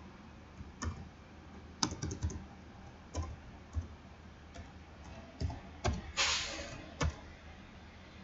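Typing on a computer keyboard: irregular single keystrokes and short runs of clicks. A brief hiss about six seconds in.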